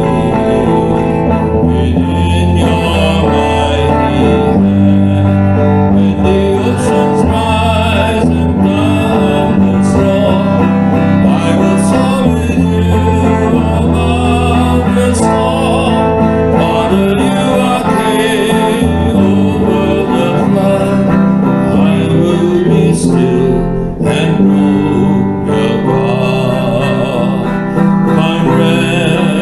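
Electric guitar playing the melody of a slow worship song, with a steady bass line sustained underneath.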